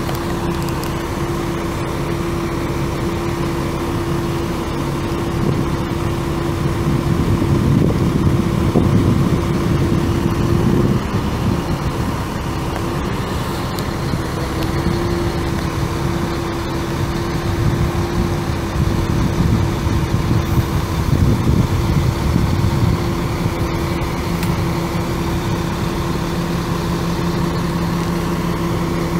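Caterpillar C7 inline-six turbo diesel engine of a bucket truck running with a steady tone over the engine noise. Twice it grows louder and rougher for several seconds.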